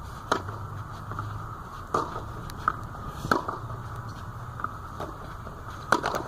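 Tennis ball hit back and forth in a rally: sharp racquet strikes and bounces about every one to two seconds, over a steady hiss.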